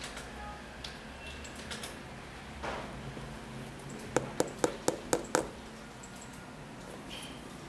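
Fingers tapping on the outsole of a Nike Air Foamposite One sneaker: six quick, sharp taps about a quarter second apart, starting about four seconds in. Before them comes a brief rustle as the shoe is handled.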